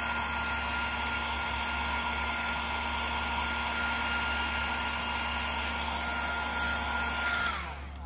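Electric heat gun blowing hot air onto heat-shrink tubing: a steady rush of air with a fixed fan whine. It is switched off near the end, and the whine falls away as the fan spins down.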